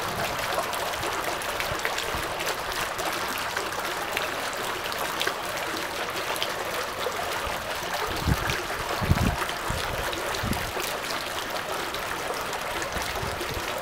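Small water jets of a stone fountain splashing steadily into their basins and the pool below, with a few low thumps about eight to ten seconds in.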